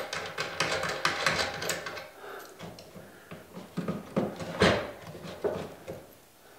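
Clicks, rattles and scrapes of parts being handled as a sanding drum and its lock nut are fitted by hand onto the spindle of a Ridgid oscillating spindle sander. There is one louder knock about four and a half seconds in.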